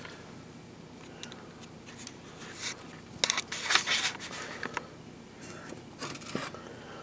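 Scattered short rubs, scrapes and clicks of handling, thickest about three to four seconds in.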